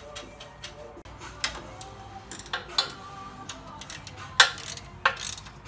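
Ratchet wrench clicking in short runs, with a few sharper metal clicks, as the oil cooler's mounting bolt is tightened, over faint background music.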